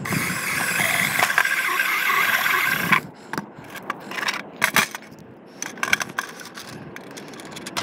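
DeWalt cordless drill running steadily for about three seconds, its bit cutting through the plastic floor of a rooftop junction box. It then stops suddenly, and scattered clicks and knocks of hard plastic being handled follow.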